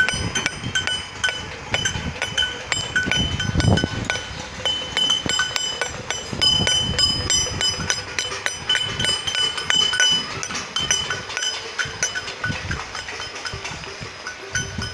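Many people on neighbouring rooftops clapping and beating steel thalis (metal plates): a dense, uneven clatter of strikes with ringing metallic tones held over it.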